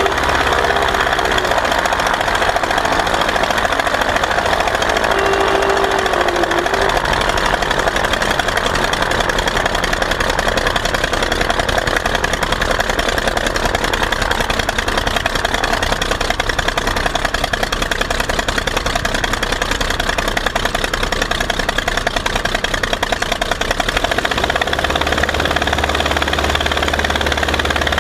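Verner 3V three-cylinder radial engine on a Legal Eagle XL ultralight running steadily at low power, its propeller turning, while the plane taxis. About twenty-four seconds in, its low rumble grows stronger.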